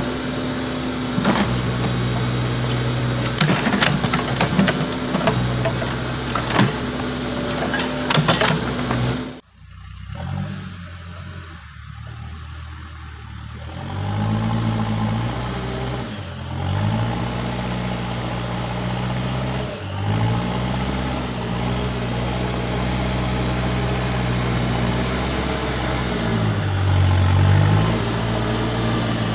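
Backhoe loader's diesel engine running at work, with scattered knocks over it. After an abrupt cut about nine seconds in, the engine revs up and down several times as it works under load.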